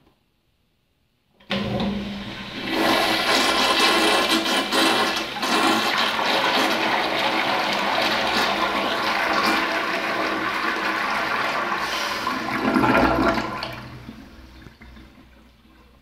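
Crane toilet flushed by a push-button flushometer valve: a sudden rush of water about a second and a half in, a loud steady gush for about twelve seconds with a brief surge near the end, then tapering off over the last couple of seconds.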